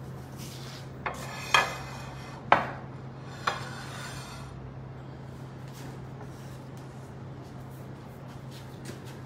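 Dishes or glassware clinking as they are handled: four sharp, ringing clinks over about two and a half seconds, starting about a second in. A steady low hum runs underneath.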